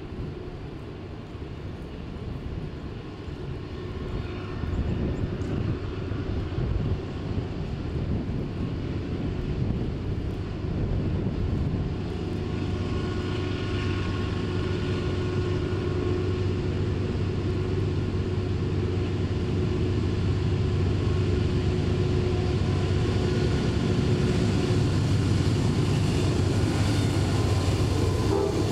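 Diesel locomotives of an approaching freight train, led by Norfolk Southern GE unit 9313, running with a steady low engine hum that grows louder as they draw near and pass.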